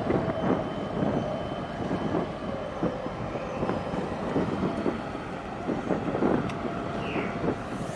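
Wind buffeting the microphone over a steady low rumble of passing vessels' engines across the harbour water.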